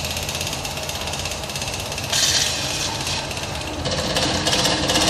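Small electric pump running with a steady, rapid mechanical rattle as it draws a coffee-and-water mix through a diesel fuel filter and out of a hose. The rattle swells briefly about two seconds in and gets louder and denser near the end.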